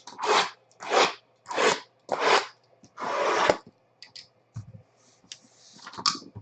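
Trading card packs being torn open and handled: five quick rustling, scraping strokes about half a second apart, then lighter rustles and clicks.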